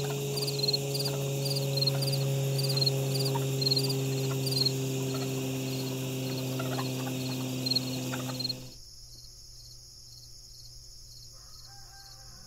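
Frogs calling in repeated short chirping clusters over a steady low hum. Both cut off abruptly about nine seconds in, leaving a fainter, steady insect-like drone.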